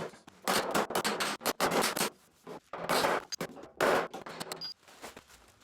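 Scraping and rubbing on a steel replacement quarter panel as the dent is worked and felt over, in a run of short, uneven bursts that stop about a second before the end.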